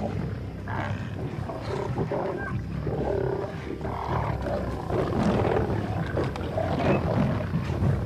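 Several lions growling at one another while feeding together at a kill, a continuous uneven low rumble with rougher outbursts.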